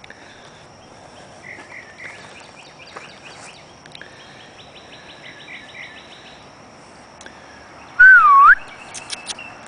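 Outdoor pre-dawn ambience: faint birds chirping and trilling over a steady high insect tone. Near the end, one loud whistle glides down and then back up for about half a second.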